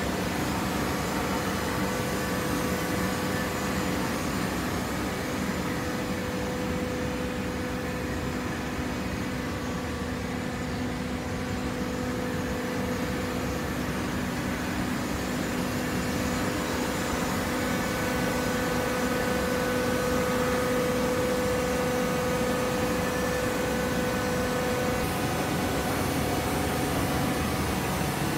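Hydraulic baler running: the electric motor and hydraulic pump give a steady hum over machine noise, a little louder in the later part.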